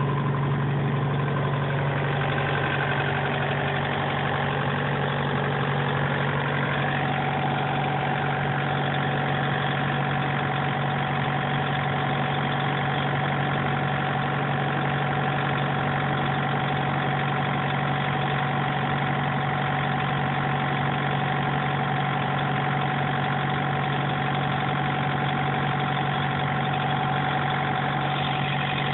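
Thermo King SB-III SR+ Whisper trailer refrigeration unit running steadily on its diesel engine, a constant low hum with a thin whine above it that shifts and settles about seven seconds in.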